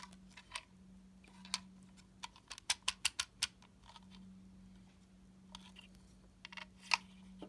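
Plastic Lego pieces of a puzzle-box lock clicking and tapping as it is handled to work its last pin into place: a scatter of small sharp clicks, a quick run of them about a third of the way in and a louder single click near the end. A faint steady low hum runs underneath.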